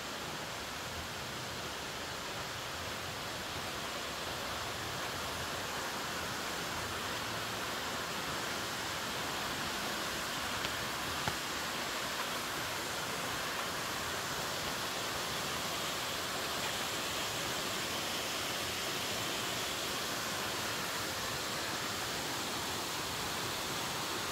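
Steady rush of flowing water from a waterfall or stream, an even hiss with a few faint ticks about halfway through.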